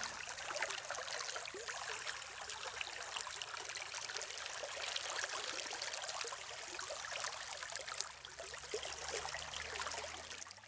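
Running water trickling and splashing steadily, like a small stream, fading out at the very end.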